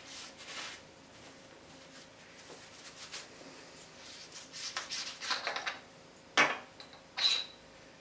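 Faint handling sounds: a cotton tea towel rubbing over the aluminium body of a ThruNite TN4A flashlight, then the flashlight being twisted apart. Near the end come two short sharp knocks as its parts are set down on a glass hob.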